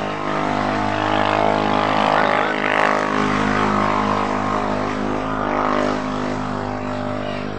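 Engine of the vehicle carrying the microphone, running steadily at an even speed while driving along.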